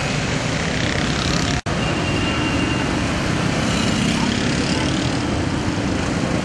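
Road traffic passing close on a rain-wet street: vehicle engines and tyres running as a steady noise. The sound cuts out for an instant about one and a half seconds in.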